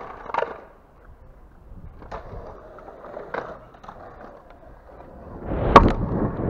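Stunt scooter on a concrete skatepark: a few light clacks of the wheels and deck on concrete and the ramp edge. Near the end comes a loud clack as the rider drops in off the ramp edge, followed by the wheels rolling down the concrete.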